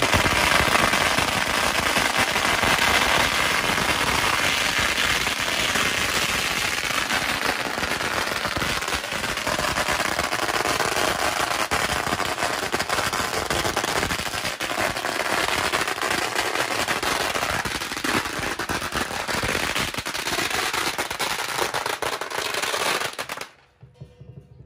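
A long string of firecrackers going off in a continuous rapid crackle of bangs, which cuts off suddenly near the end.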